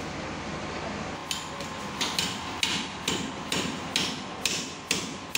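Repeated sharp knocks, about two a second and somewhat uneven, starting about a second in over a steady background noise.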